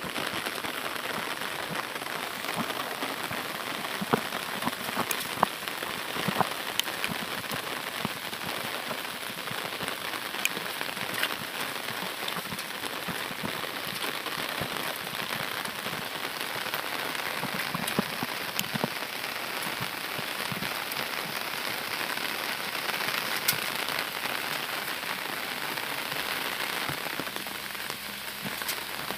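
Heavy rain falling steadily, with scattered sharper taps of single drops close by.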